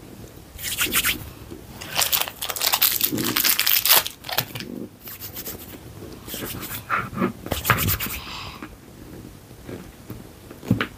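Crinkling and scraping of hands handling air-dry clay and its plastic packets on a tabletop, in three short spells of rustle.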